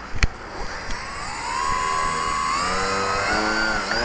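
Small electric motor of a radio-controlled model aircraft spooling up, its whine rising in pitch in steps, with a high steady electronic whine over it. A sharp click comes just as it starts.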